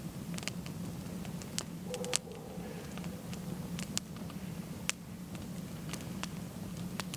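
Wood campfire crackling, with irregular sharp pops and snaps, over a steady low hum.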